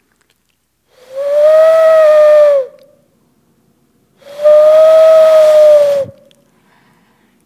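Two blasts on a ram's horn shofar, each about a second and a half long, held on one note that drops at the end.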